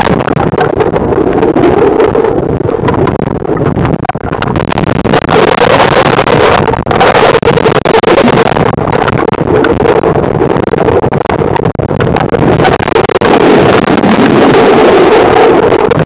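Rushing water of river rapids heard through a camera held underwater: a loud, continuous churning noise, with louder, brighter stretches midway and near the end.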